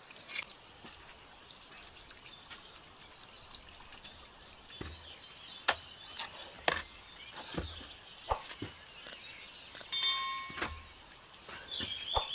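Forest ambience with birds calling, broken by scattered sharp knocks and scrapes of hand work on stone and mortar with a trowel.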